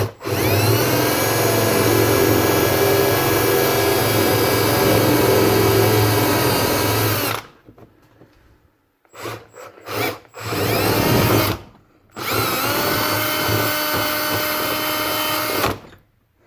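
Electric drill boring mounting holes through a half-inch plywood bench top. It runs steadily for about seven seconds and stops, gives a few short bursts, then spins up again for a second run of about three and a half seconds.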